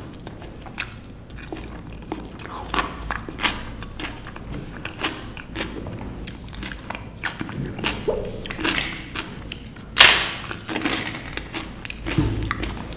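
A person eating dal and rice up close, with wet chewing and repeated mouth smacks and clicks. One loud, sharp noise stands out about ten seconds in.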